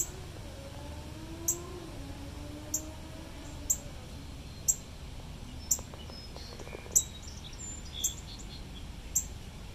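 Outdoor wildlife sound: a short, high chirp repeating about once a second, with a few faint bird chirps a little past the middle.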